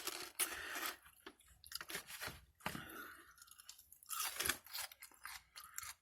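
A person chewing and crunching food close to the microphone, with irregular wet mouth clicks and crunches.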